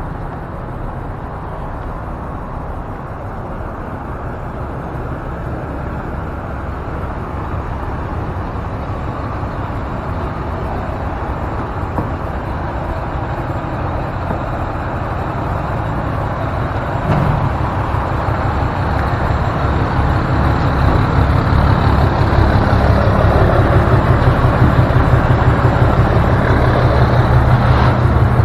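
Truck engine running as the hotshot rig rolls slowly through a truck stop. It grows gradually louder, and over the last third a strong, low, rhythmic pulsing comes in.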